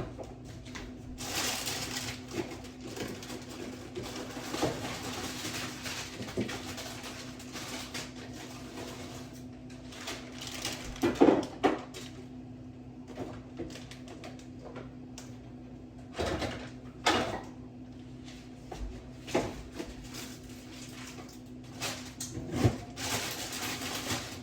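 Kitchen work sounds: scattered knocks and clatter of cookware and utensils over a steady low hum, with an even hiss through the first several seconds.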